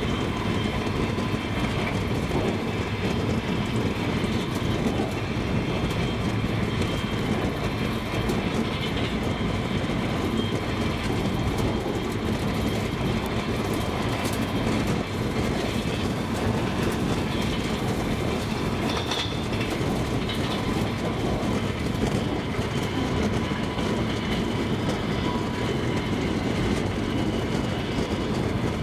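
Double-decker passenger train running along the track, a steady rumble with the knock of its wheels on the rails.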